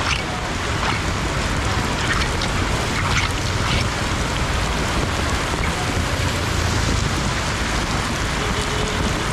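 Heavy rain and floodwater: a steady hiss with a few faint, brief splashes in the first four seconds.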